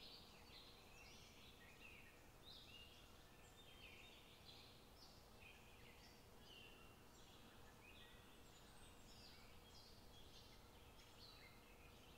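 Faint scraping and rustling of a wooden spatula stirring and breaking up a crumbly mixture in a nonstick pan, in irregular strokes about one or two a second.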